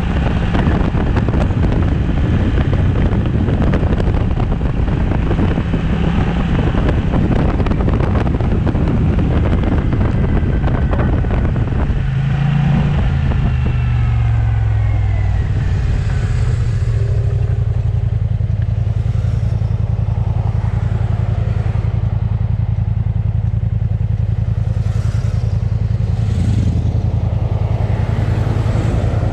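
Kymco AK550 maxi-scooter riding with heavy wind rush and engine noise. About twelve seconds in, the wind noise falls away and the engine note drops as the scooter slows. It then runs on with a steady low engine hum.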